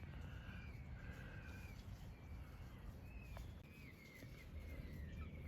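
Birds chirping and singing: a run of short, high, wavering chirps repeated throughout, faint over a low background rumble.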